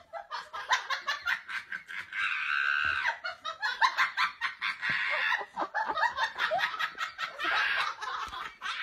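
A person laughing and giggling in quick, breathy bursts.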